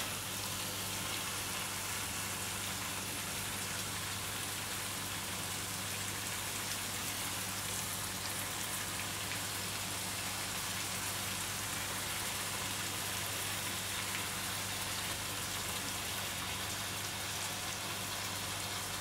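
Thin slices of beef frying in hot oil in a frying pan, a steady, even sizzle that is the meat being seared first in Kansai-style sukiyaki. A faint low hum sits under it.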